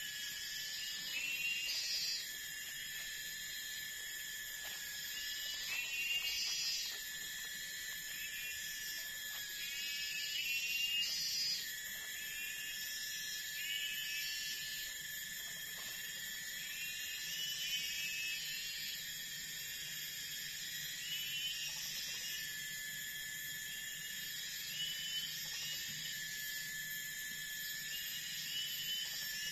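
Forest insects droning in steady high-pitched tones, with short chirping calls repeated every few seconds over them.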